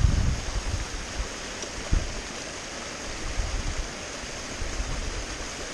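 Small fell gill running over rocks: a steady rushing and splashing of water, with a couple of brief low thuds on the microphone near the start and about two seconds in.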